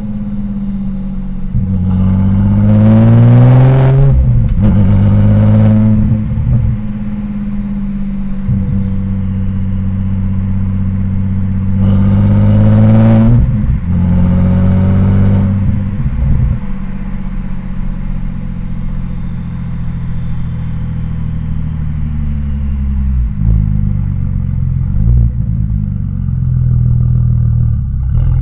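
Tuned twin-turbo Audi S4 B5 engine revving up twice, about two and about twelve seconds in. Each time, turbo flutter and a falling turbo whistle follow as the throttle closes. In between it cruises steadily at low revs.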